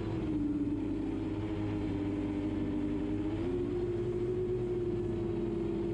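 Quadcopter drone's electric motors and propellers humming steadily in flight; the pitch sags slightly, then rises again a little past halfway as the motors speed up.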